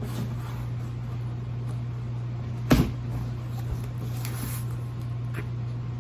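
A cardboard shipping box being handled: one sharp knock a little under three seconds in, then a brief faint rustle and a small tick, over a steady low hum.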